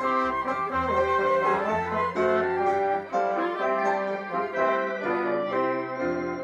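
Instrumental music: a tune of pitched notes over a bass line.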